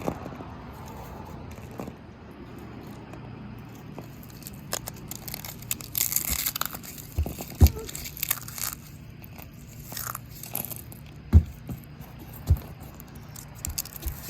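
Oreo cookies being crushed by hand: bursts of dry crunching and crackling, heaviest about halfway through, with a few sharp thumps after it.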